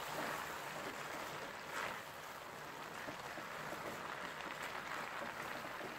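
Gajar halwa mixture of grated carrots, milk and freshly added sugar sizzling and bubbling faintly in the pan over a high flame while a wooden spatula stirs it; a steady soft hiss.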